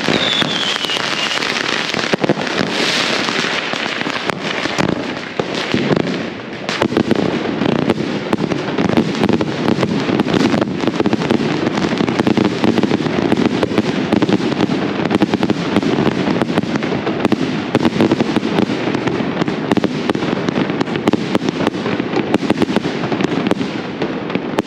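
Dense, continuous barrage of firecracker bangs in quick, unbroken succession, growing heavier and denser about seven seconds in, with a falling whistle at the very start.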